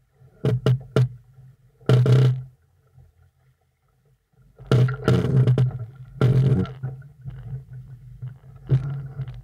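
Wind buffeting the microphone in irregular gusts over choppy water, with a few sharp knocks near the start and longer rumbling bursts later.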